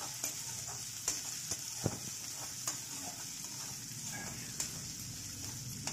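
Chopped onions and green chillies sizzling in hot oil in a metal kadhai as a spatula stirs them: a steady hiss with scattered clicks and scrapes of the spatula on the pan, one louder knock about two seconds in.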